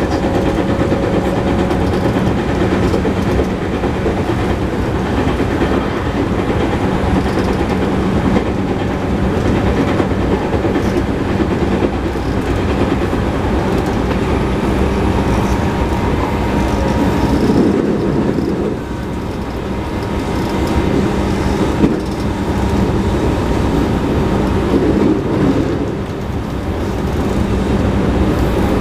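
JR West 221 series electric train running at speed, heard from inside the car: a steady rumble of wheels and traction motors with a continuous hum and rail clatter, dipping briefly in loudness twice. The car has a flat spot on a wheel, which adds a repeated knock to the running sound.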